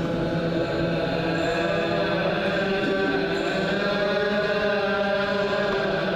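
Clergy chanting Ge'ez (Ethiopic) liturgical chant together in long drawn-out notes that shift slowly in pitch.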